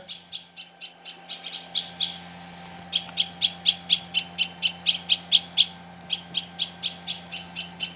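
Recorded call of a great spotted woodpecker played from a Wild Republic Audubon plush bird's sound chip: short, sharp, high calls repeated about five a second, in three runs with brief pauses between them.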